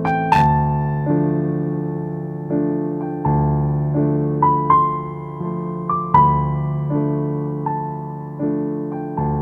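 Background music: a slow piano melody, single notes struck about once a second and fading over held chords.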